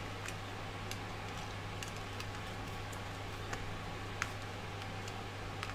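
Scattered light clicks and ticks, the sharpest about four seconds in, as a screw is driven by hand into a 3D-printed plastic part. A steady low hum runs underneath.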